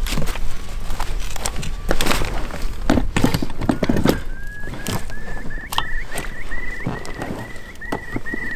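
Knocks and thumps of outdoor gear being handled and packed. From about halfway in, a short high chirp repeats about three times a second.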